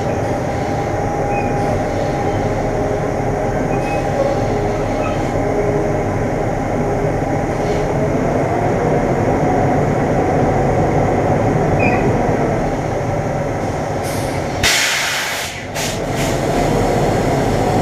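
Semi truck running with a steady rumbling drone and a faint whine. About fifteen seconds in there is a short, loud hiss of air.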